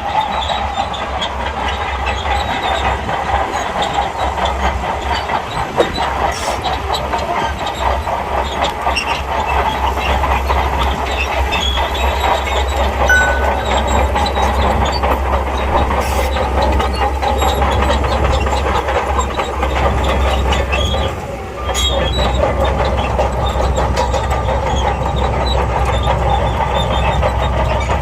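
SHANTUI crawler bulldozer working: the diesel engine runs steadily under a continuous metallic clatter and squeal from its steel tracks, with a brief dip about three-quarters of the way through.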